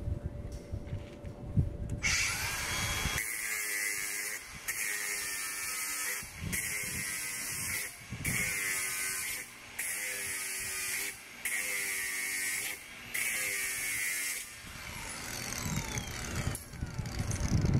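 A small electric power tool running in a series of short bursts, about seven in a row, each about a second and a half long with brief pauses between.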